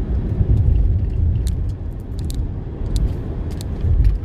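Low, steady rumble of a car driving along a paved country road: tyre and wind noise, with a few faint clicks.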